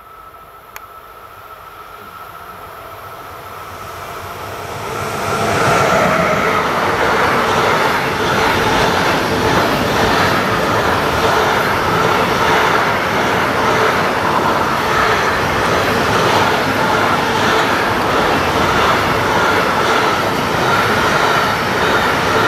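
Intermodal freight train hauled by a Siemens Vectron electric locomotive approaching and passing, lorry trailers on pocket wagons rolling by. The sound grows over the first six seconds, then holds as a steady loud rush and clatter of wagon wheels on the rails, with a steady high tone running through it.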